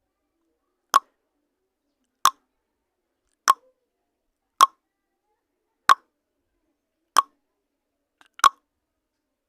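Countdown timer sound effect: a short, sharp click repeating evenly about every 1.3 seconds, seven clicks in all, with silence between them.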